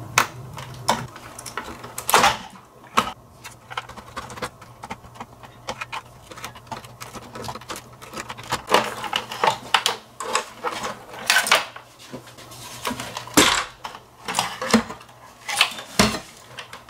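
Irregular small clicks, taps and light clinks of a screwdriver and fingers prying wire connectors off a Micromoog synthesizer's circuit board, with a few louder knocks as parts are handled.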